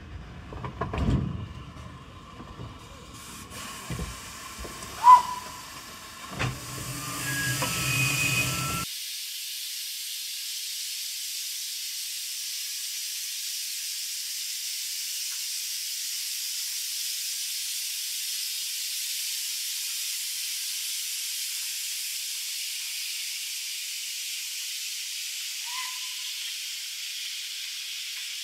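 Steam locomotive letting off steam: a steady, high hiss that starts abruptly about nine seconds in. Before it comes a run of scattered clicks and knocks, one of them sharp and loud about five seconds in.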